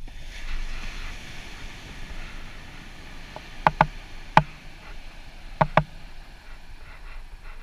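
Ocean surf on the beach heard as a steady hiss. About halfway through come five sharp clicks, two close pairs and a single one between them.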